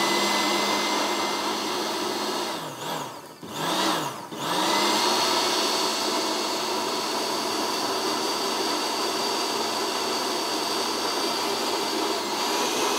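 Electric blender running steadily, puréeing a minced-meat and cream soup. The motor briefly slows and picks up again twice, around three and four seconds in.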